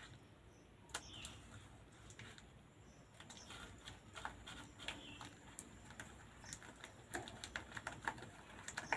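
Faint, irregular small clicks and taps of a hand kneading dough in a steel bowl, the fingers and bangles knocking against the metal; the clicks come more often in the last couple of seconds.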